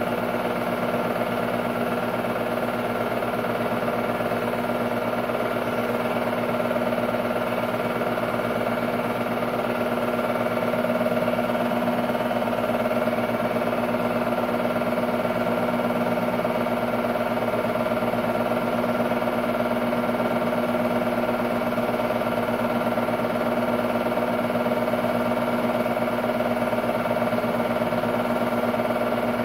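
Technicolor 810 instant movie projector running an 8mm film-loop cartridge: a steady motor hum with the fast, even clatter of the film transport.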